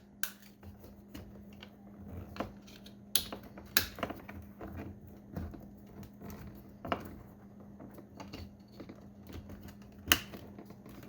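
Scattered sharp plastic clicks and handling noise as wiring connectors are pushed into a car's power window switch, a few distinct snaps with quieter fumbling between them.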